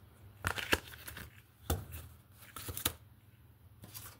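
Tarot cards being shuffled and handled: several short, irregular rustles and snaps.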